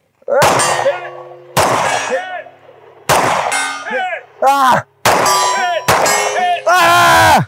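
Pistol shots about a second apart at steel targets, each hit setting the steel plates ringing with a clear metallic tone that hangs on between shots.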